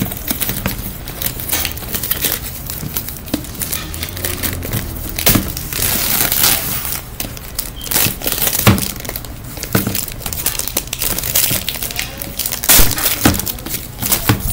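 Plastic wrapping on a Hairdorables doll package crinkling and crackling as it is peeled and torn off by hand, with irregular sharp snaps throughout.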